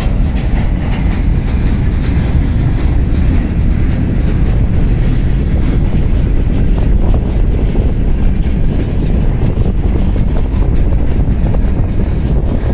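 Loaded gondola cars of a long freight train rolling past: steady wheel-on-rail noise with faint scattered clicks, and wind buffeting the microphone.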